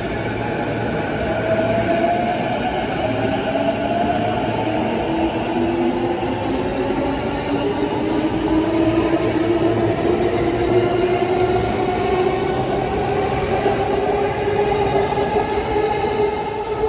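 JR Chuo Line electric commuter train departing: its traction motors give a whine that rises slowly in pitch as the train gathers speed, over the steady rumble of the wheels on the rails.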